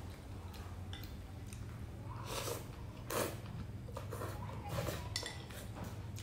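Close-up eating sounds: hủ tiếu rice noodles slurped and chewed, with a few light clicks of a spoon and chopsticks.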